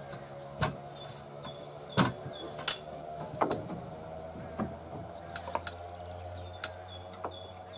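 Cordless drill running into a timber stud frame, with sharp knocks from the wood and the tool spread through it. Small birds chirp repeatedly in the second half.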